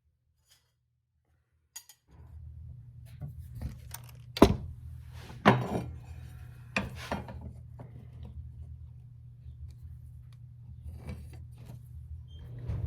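A few sharp knocks and light clatter of hard objects being handled, over a steady low hum. The sound starts abruptly about two seconds in, after silence, and the two loudest knocks come about two and a half and three and a half seconds in.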